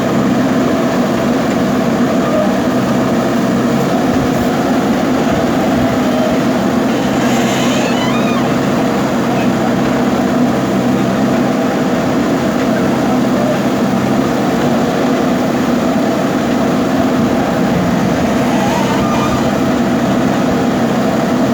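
Diesel engine of a JCB backhoe loader running steadily while the machine works. A brief high squeak comes about seven seconds in.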